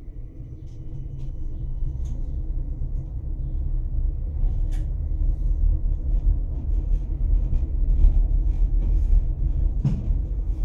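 Tatra T3SU tram heard from inside the passenger cabin as it pulls away and gathers speed: a low rumble of wheels and running gear growing louder over the first few seconds, then running steadily, with scattered clicks and knocks.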